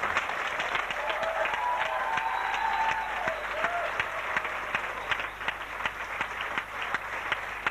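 Theatre audience applauding, many hands clapping in a dense, steady patter.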